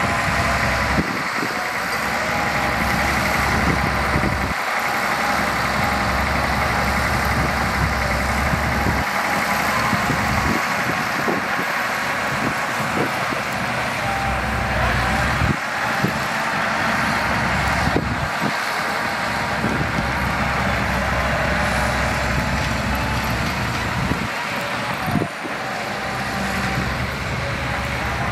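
Heavy diesel engine of a loaded dump truck running as it drives, a steady mechanical drone. Its deep rumble drops out and comes back several times.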